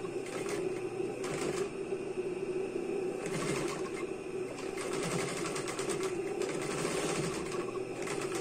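Sewing machine running steadily with a fast, even stitching rhythm as it stitches through a thick ruffled fabric rug.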